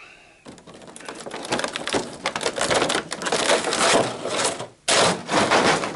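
Stiff clear plastic packaging crackling as an RC truck is pulled free of its moulded tray: a long run of dense crackles, a brief pause near the end, then a second burst.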